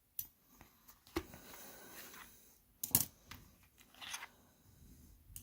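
Small steel lock picks handled and drawn out of a soft case: a few sharp, light clicks about a second apart, with faint rustling in between.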